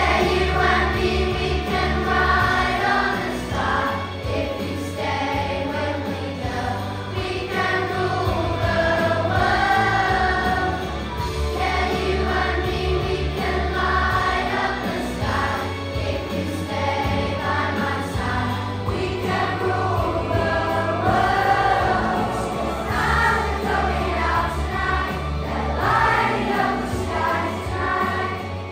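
A group of children singing a song together in unison over an instrumental backing with a steady bass.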